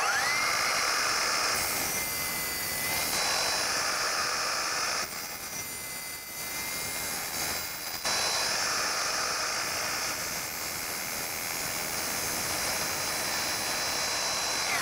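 Milwaukee miter saw motor whining up to speed and running as its blade trims wooden panel molding. It eases off about five seconds in and comes back up sharply about eight seconds in, as the molding is fed into the blade a little at a time to creep up to the cut line.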